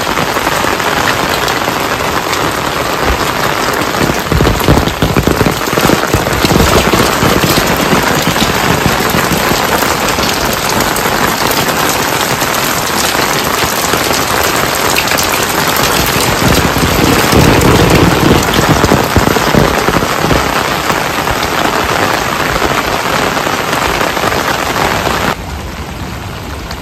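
Rain falling steadily, a dense patter of drops on surfaces, swelling louder twice. The level drops suddenly near the end.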